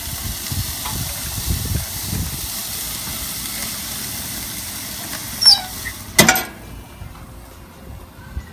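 Marinated chicken pieces sizzling on the hot firebox grate of an Oklahoma Joe's Highland offset smoker. About five and a half seconds in there is a short squeak, then a loud metal clang as the steel firebox lid is shut, and the sizzle goes muffled.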